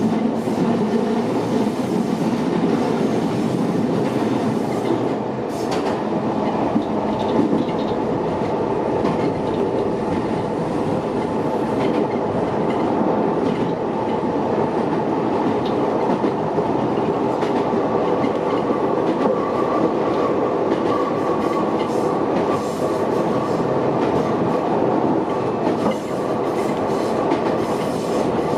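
Shintetsu 6500-series electric train running up a steep grade, heard from inside the driver's cab: a steady rumble of wheels and traction motors with rail clacks. A steady higher tone joins in a little past halfway.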